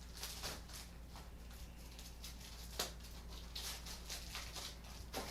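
Faint rustling and handling of yoga-mat packaging as it is opened: scattered short rustles and soft clicks, the sharpest a little before three seconds in and again near the end.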